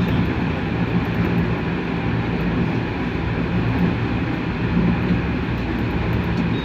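Nankai 1000 series electric train running along the line, heard from the driver's cab: a steady running noise of wheels on rails with a low, even hum.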